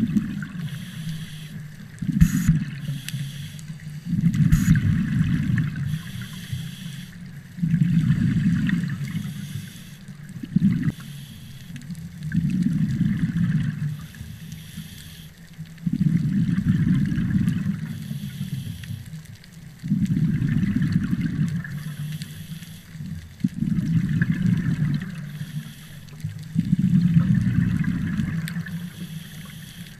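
Scuba diver breathing through a regulator, heard underwater: a bubbling gurgle of exhaled air about every three to four seconds, each burst lasting a second or two.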